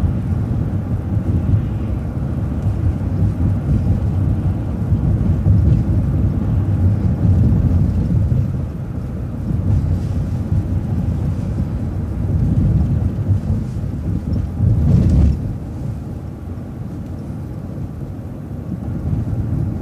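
Low, steady rumble of a city transit bus on the move, with engine and road noise heard from on board. It swells and eases over the stretch, and there is a brief knock about fifteen seconds in.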